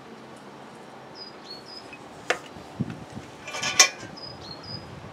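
Metal clinks and knocks from steel grill tongs and charcoal briquettes in a concrete fire pit: one sharp click a little before halfway, then a louder rattling cluster of ringing clinks. Short high bird chirps come several times in the background.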